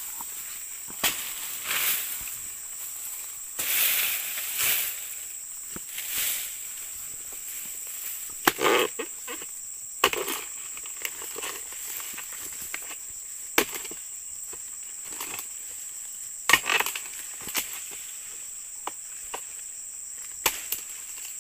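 Footsteps rustling through grass, then about five sharp chops of a dodos, a chisel blade on a long pole, striking the frond bases of an oil palm a few seconds apart. A steady high insect buzz runs underneath.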